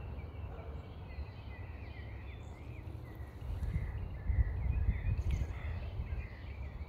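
Small birds chirping repeatedly in the background over a low, uneven rumble that swells about four to five seconds in.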